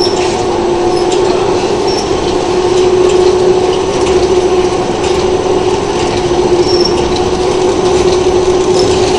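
Horizontal flow-wrap (pillow) packaging machine running: a steady mechanical hum with one constant tone, and faint irregular clicks from the conveyor and wrapping mechanism.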